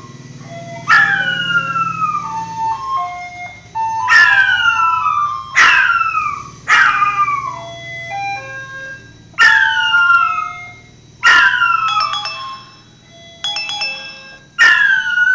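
Pomeranian howling along to a Wall's ice cream seller's chiming jingle: seven short howls, each starting high and sliding down in pitch, over the quieter melody.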